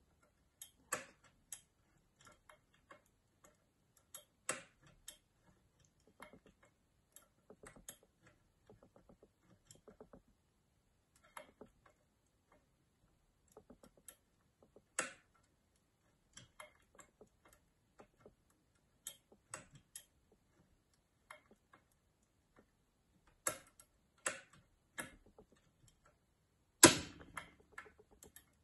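Lever picks working inside a Mottura 52771 lever mortise lock: scattered, irregular small metal clicks and ticks as the levers are lifted and set, with a louder click near the end.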